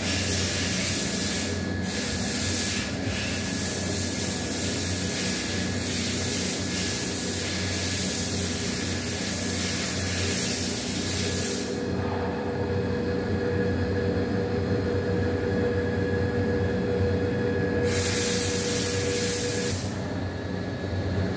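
A steady machine hum, with a loud hiss over it for about the first eleven seconds that stops, then returns for about two seconds near the end.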